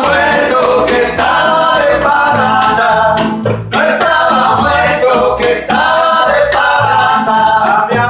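Live rumba: men singing loudly over an acoustic guitar strummed in the fan-like rumba 'ventilador' technique, with a plucked upright double bass keeping a steady beat underneath.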